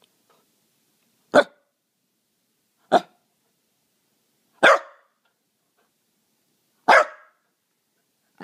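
A young corgi giving single sharp barks, four of them spaced a second and a half to two seconds apart: play barks, the dog asking to play.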